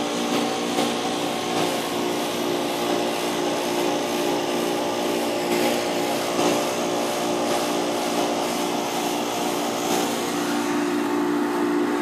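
Refrigerant recovery machine running steadily with an even motor-and-compressor hum as it pulls the last of the refrigerant out of an air-conditioning system.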